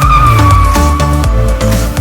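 Loud electronic dance music with a steady beat and heavy bass, with a high held tone that slides slowly downward and fades out past the middle.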